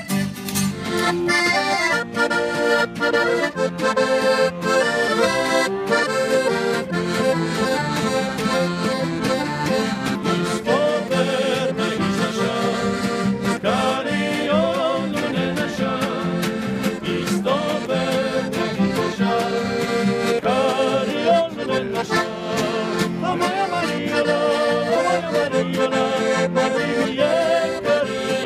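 Accordion playing a lively melody over strummed acoustic guitar and acoustic bass guitar, in the style of Slovenian pop-folk (narodnozabavna) band music.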